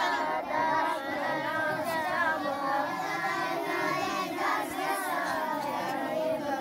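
A large group of children chanting together in unison, many voices without a break.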